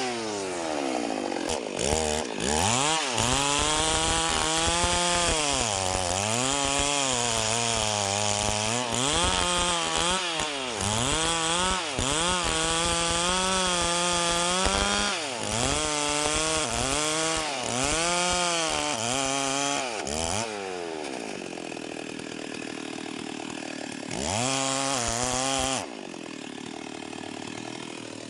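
STIHL MS 381 two-stroke chainsaw cutting wood, its engine pitch repeatedly rising and dipping as the chain takes the load. About twenty seconds in it drops to idle, revs once briefly, and settles back to idle.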